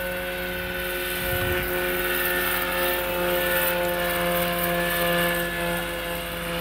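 Electric RC scale Bo 105 model helicopter, driven by a Hacker 12S electric motor, flying past: a steady whine from the motor and gearing over the swish of the rotor blades. It gets louder from about a second in as the model passes close, then eases off near the end.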